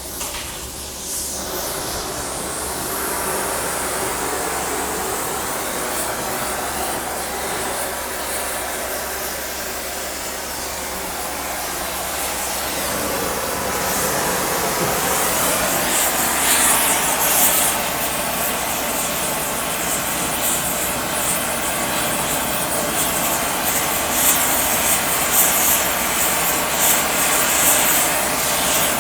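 Oxy-fuel rosebud heating torch burning with a steady loud hiss while heating steel plate for bending. It grows louder and rougher from about halfway through.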